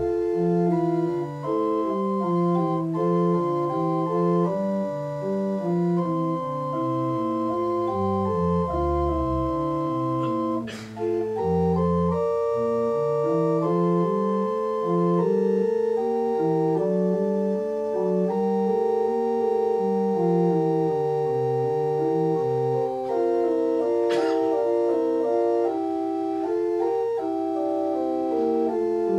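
Church organ playing a slow piece in held notes, with a bass line moving step by step beneath the chords.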